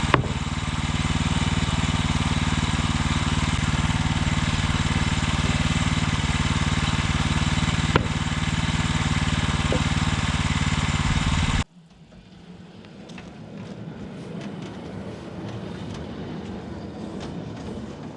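Woodland Mills HM126 portable bandsaw mill's gas engine running steadily at working speed while milling, with a couple of faint clicks. A little under twelve seconds in the engine sound stops abruptly and much quieter scuffing and handling noise follows.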